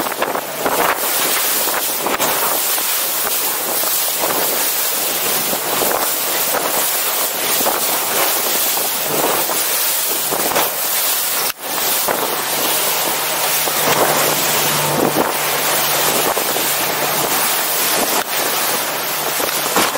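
Wind buffeting the microphone and water rushing and spraying along the hull of a small speedboat running at speed. A steady low engine hum comes through in the second half.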